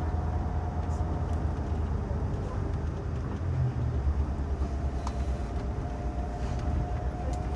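Tour coach driving, heard from inside the cabin: a steady low engine and road rumble with a faint steady whine above it.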